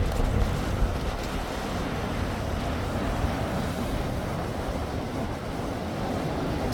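Steady wind buffeting the microphone, with the wash of waves underneath.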